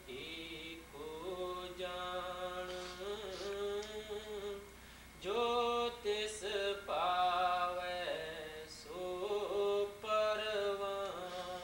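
Slow devotional singing of a Punjabi Gurbani hymn: one voice draws out long held notes that slide between pitches, phrase by phrase, with a short pause a little before halfway.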